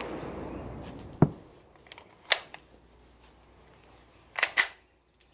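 Canik TP9SA 9mm pistol firing reloads loaded with small rifle primers: the echo of a shot fades at the start, another shot goes off about a second in, then a few fainter sharp cracks follow.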